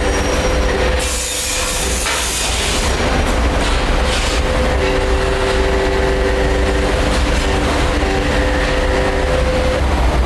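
Brass pipe making machinery running loudly and steadily, with a low hum and several steady squealing tones that hold for a few seconds at a time and then drop out.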